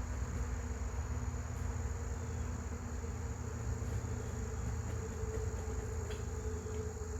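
Steady high-pitched insect buzzing, like crickets, over a low steady hum.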